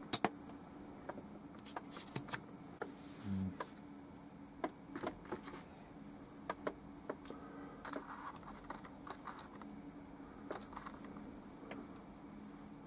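Scattered small clicks and taps from handling, with a sharper click just after the start, over a faint steady room hum.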